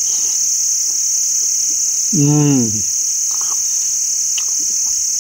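A steady high-pitched chorus of insects, with a man's short 'mmm' of enjoyment about two seconds in.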